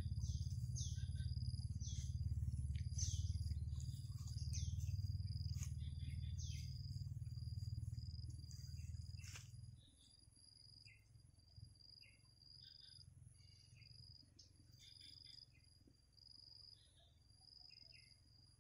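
A steady high insect trill, cricket-like, with scattered short bird chirps. A low rumble, the loudest sound, runs through the first half and stops about halfway through, just after a sharp click.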